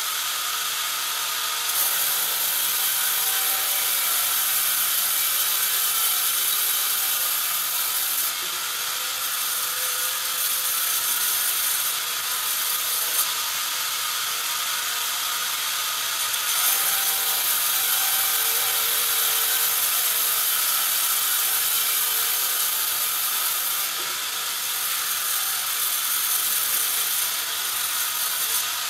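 Sawmill band saw running, its blade ripping lengthwise through a thick board fed past it on the carriage. The hissing cut grows louder in three stretches, about two to eight seconds in, from about seventeen to twenty-four seconds, and briefly near the end.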